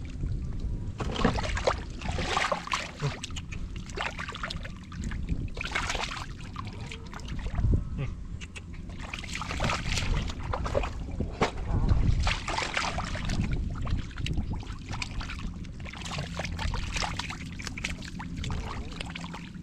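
Hands working through muddy water, with irregular splashing and sloshing.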